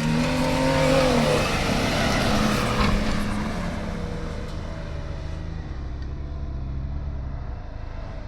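Off-road vehicle's engine revving hard under load for the first three seconds, then dropping to a lower, steadier run that fades somewhat.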